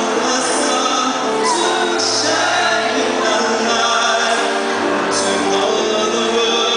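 A man singing a solo into a handheld microphone, his notes held and sliding in pitch, over musical accompaniment.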